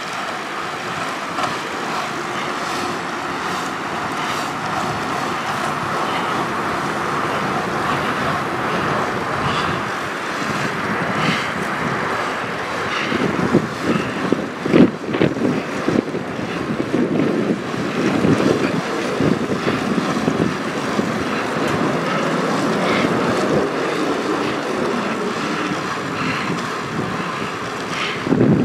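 Steady rolling roar of wheels on asphalt, with wind buffeting the microphone and a few louder bumps about halfway through.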